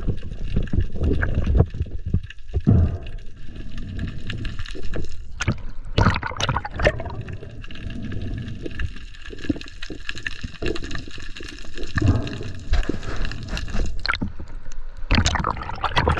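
Muffled underwater sound picked up by an action camera in its waterproof housing during a spearfishing dive: water gurgling and rushing against the housing, with several louder rushes and knocks, over a faint steady whine.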